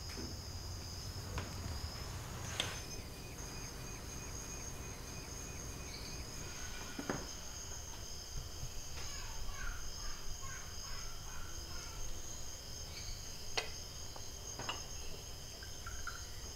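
Steady high insect chorus at two pitches, chirring throughout, with a few light clicks scattered through it.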